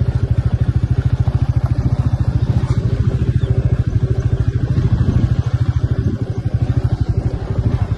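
Motorcycle engine running at a steady pace while riding, a rapid, even exhaust beat that eases off slightly about six seconds in.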